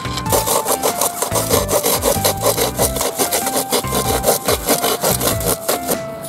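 Folding pruning saw cutting through a thin wooden board in rapid, even back-and-forth strokes, starting just after the beginning and stopping shortly before the end.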